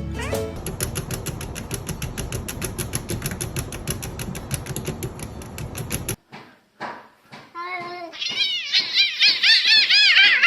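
A cat meowing over and over in quick, high, rising-and-falling calls, loudest in the last few seconds. Before it comes a rapid, even ticking that stops abruptly about six seconds in.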